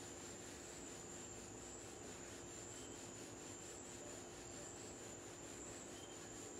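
Faint, steady background noise: a hiss with a constant high-pitched whine and a low hum.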